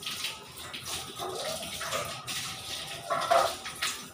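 Water running from a tap and splashing irregularly, as if something is being rinsed under it, with the loudest splash about three seconds in; the flow stops abruptly near the end.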